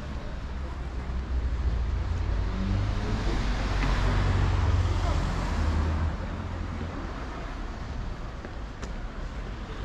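A road vehicle passing by on a city street: the noise swells for a few seconds, peaks about halfway through and fades back into steady traffic noise.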